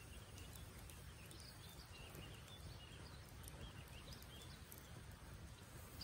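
Faint outdoor ambience: distant birds chirping now and then over a low steady rumble, with a few soft crackles from a small wood campfire.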